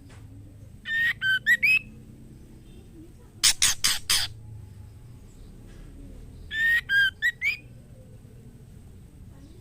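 Female white-rumped shama calling: a short phrase of whistled notes that dip and rise, then a quick run of four or five harsh rasping notes, then the whistled phrase again. It is the female's call to a male.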